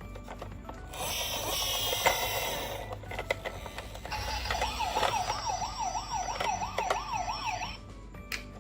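Toy ambulance minicar's electronic siren wailing, a tone that rises and falls quickly, about three times a second, for several seconds before cutting off. A hissing burst about two seconds long comes before it, with scattered light clicks throughout.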